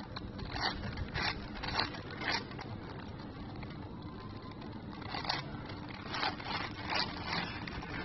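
7x7 Rubik's cube layers being twisted by hand, a short plastic scraping click with each turn, about two turns a second, with a pause of a couple of seconds midway.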